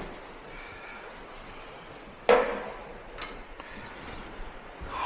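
A single sharp, loud knock on the baler's machinery about two seconds in, ringing briefly, then a lighter click about a second later.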